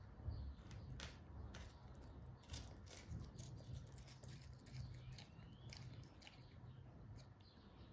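Green iguana biting and tearing at leafy greens: a string of faint, crisp snipping clicks. A bird chirps once faintly in the background.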